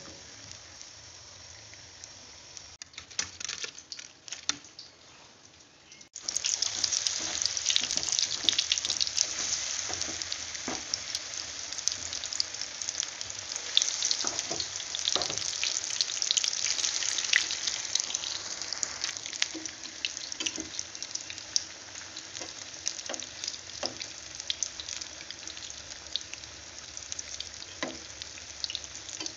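Potato bites deep-frying in hot oil, sizzling. The first few seconds are quieter, with a few clicks. About six seconds in, the sizzle jumps suddenly loud as a fresh batch of battered potato balls goes into the oil, then eases slowly.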